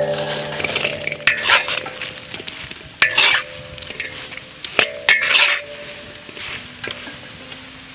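Fried yam pieces tipped into bubbling sugar syrup in an iron wok and stirred through it with a metal spatula, which knocks and scrapes against the wok in a few separate strokes over a light sizzle. This is the syrup-coating stage of candied (pulled-sugar) yam.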